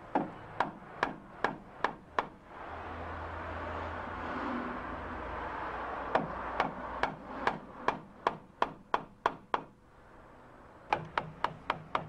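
Mallet striking a chisel to chop the recess for a lock keep out of a wooden door frame. The strikes are sharp taps, about three a second, in runs with pauses between them. A few seconds of steady hiss and low hum fill the gap after the first run.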